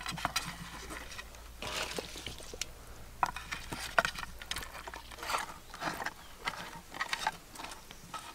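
Wet squelches and slaps, irregular and short, as hands rub marinade into whole fish and lay them in a clay bowl.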